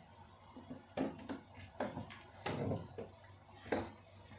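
Kitchen items being handled: a series of about six light knocks and clatters, as of a jar, spoon or cup being picked up and set down.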